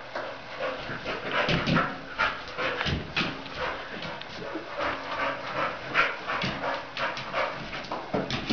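Staffordshire terrier whining and giving short excited yelps as it jumps for a balloon, with quick thuds and scrabbles of its paws on the wooden floor.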